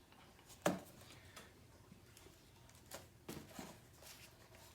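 A few light knocks and clicks of things being moved about on a tabletop, the sharpest about two-thirds of a second in and a small cluster around three seconds in, with faint room quiet between.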